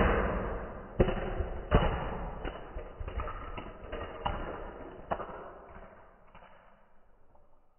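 Hot Wheels die-cast cars shooting out of the end of a plastic multi-lane track and tumbling across carpet: a rolling rush that fades out, broken by a string of sharp knocks and clatters as the cars land and roll over. All is still about six and a half seconds in.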